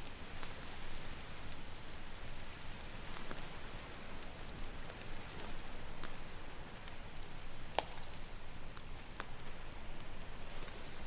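Campfire crackling with scattered sharp pops, one louder pop about eight seconds in, over a steady wash of ocean waves.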